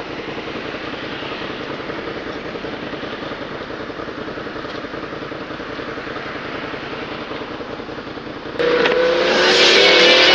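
A 2008 Suzuki SV650's V-twin engine running steadily on the move. About eight and a half seconds in, the sound cuts suddenly to much louder music with rising pitched tones.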